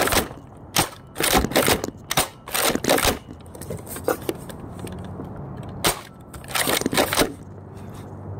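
Buzz Bee Ez Fire Rifle, a spring-powered foam dart blaster, being primed and fired again and again: a series of sharp plastic clacks and pops, some in quick clusters, with short pauses between shots.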